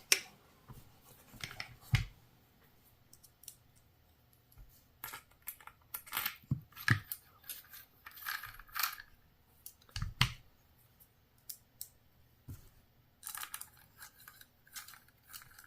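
Irregular clicks, light scrapes and taps of small metal and plastic gun parts being handled and fitted, with a dull knock about two seconds in and another about ten seconds in.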